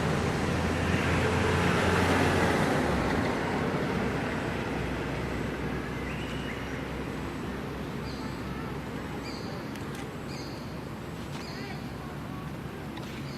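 A passing road vehicle's noise fading away over the first few seconds, then short high chirps repeating about once a second.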